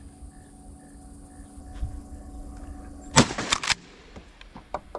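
A shotgun fired at passing ducks about three seconds in, the loudest sound, followed within half a second by two more sharp bangs, then a few lighter clicks.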